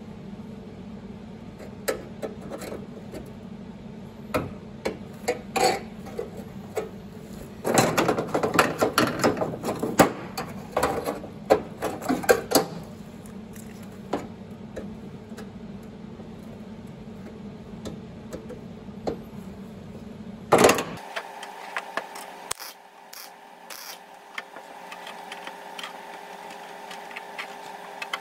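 Sheet-metal bodywork: scattered sharp metallic knocks and clicks over a steady hum, with a dense run of rapid crackling clicks from about eight to thirteen seconds in. About twenty-one seconds in the background changes abruptly to a different, higher steady hum.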